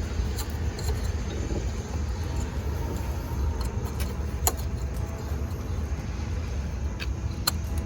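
A few sharp plastic clicks as ignition-coil electrical connectors are snapped back onto the coils, over a steady low background rumble.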